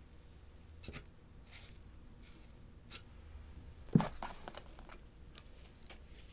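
Gloved hands handling cardboard packaging: scattered light taps and rustles, a sharp knock about four seconds in as a hand presses into the box, followed by a few softer clicks and scrapes as a cable and strap are lifted out.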